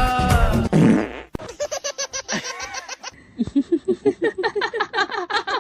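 Music cuts off and a short, low fart sound follows about a second in. Then come several seconds of rapid, pulsing laughter.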